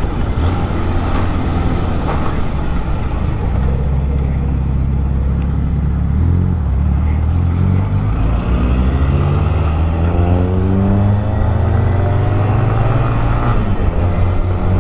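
Honda motorcycle engine running as the bike rides through city traffic. Its pitch climbs steadily as it accelerates from about eight seconds in, then drops back near the end.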